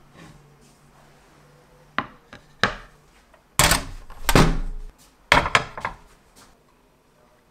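A portable gas stove being handled and lit and a frying pan set on its grate: two sharp clicks, then a loud rushing stretch of about a second and a half near the middle, followed by a few hard knocks and clatters.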